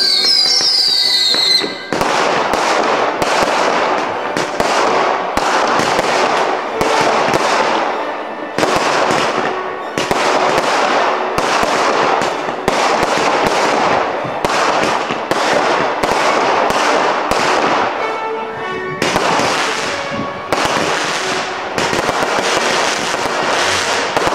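Fireworks going off. Whistling shots fall in pitch in the first couple of seconds, then comes a rapid run of bangs and crackling bursts, about two a second, with a few brief pauses.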